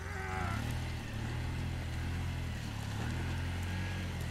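An off-road vehicle engine running steadily with a low rumble, during a tow out of the mud.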